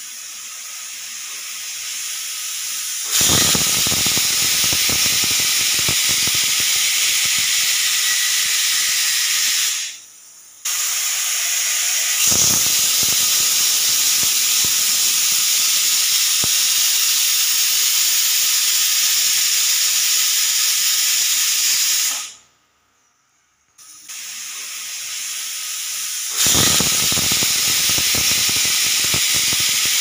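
Pressure cooker whistle valve blowing off steam: a loud, steady hissing whistle as the weight lifts. It happens in three long blasts, each swelling from a rising hiss to full strength. There is a short break about a third of the way in and a brief near-silent gap about three-quarters through.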